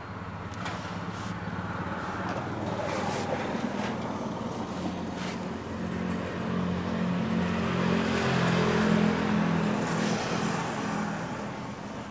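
A motor vehicle engine running close by, a steady low hum that grows louder to a peak about eight to ten seconds in and then eases off. A few light clicks come in the first five seconds.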